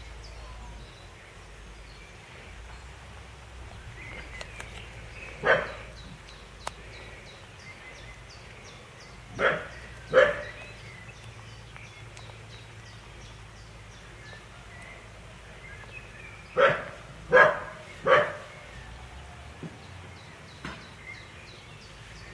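Six short animal calls: one, then a pair about a second apart, then three in quick succession, over a faint steady background.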